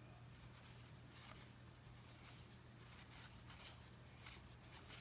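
Faint, soft flicks and rustles of cardboard baseball cards being slid off a hand-held stack one at a time, coming irregularly about every second.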